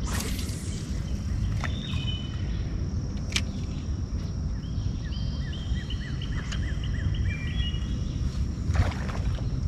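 Birds singing in runs of short chirps and whistles over a steady high insect drone, with a constant low rumble underneath and a few sharp clicks.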